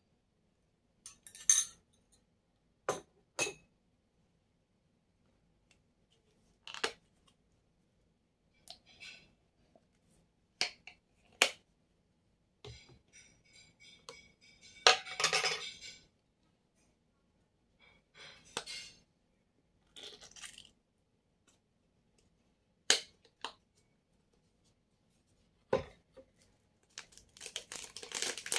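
Scattered sharp clinks and taps of glass jars, bowls and metal utensils being picked up and set down while a wrap is assembled, with a short rustly burst about halfway through. A crinkling of a plastic spice packet being handled starts near the end.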